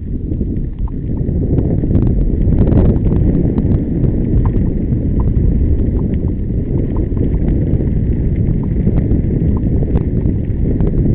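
Wind buffeting the microphone of a camera moving along a gravel dirt track, a loud low rumble that builds over the first couple of seconds, with scattered irregular clicks and rattles.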